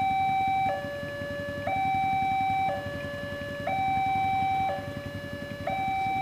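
Railway level-crossing warning alarm at an Indonesian double-barrier crossing. It sounds a steady electronic two-tone signal, alternating between a higher and a lower note about once a second, warning that a train is approaching and the barriers are down.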